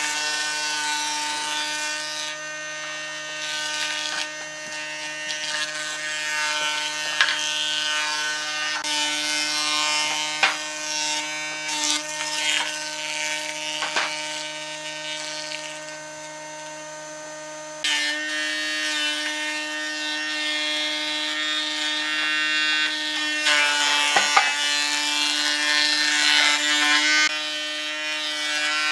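Combination woodworking machine running with a steady motor whine as its jointer-planer cutterhead planes a board, with the rasp of wood being cut and occasional sharp knocks. The sound changes abruptly about halfway through.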